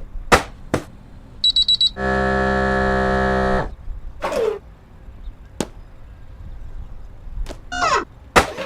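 Sound effects: a quick run of high electronic beeps like an alarm clock, then a loud, steady buzzer tone lasting about a second and a half. Scattered clicks, a short falling swoop and a rising sweep near the end come around it.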